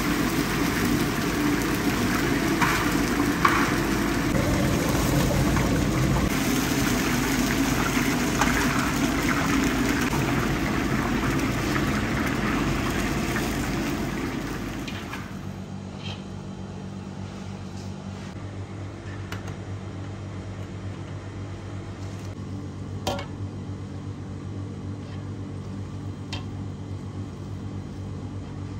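Hot oil sizzling and bubbling loudly in a large kazan as pieces of food deep-fry. About halfway through it gives way to a much quieter steady low kitchen hum with a few faint clicks.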